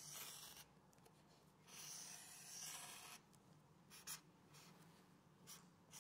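Felt-tip marker drawing on a sheet of paper: two longer strokes in the first half as circles are drawn, then a few short, light strokes.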